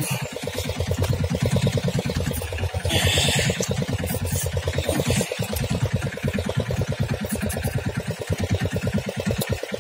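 Boat engine idling with a fast, even pulse, while a spinning reel is cranked quickly to retrieve a lure.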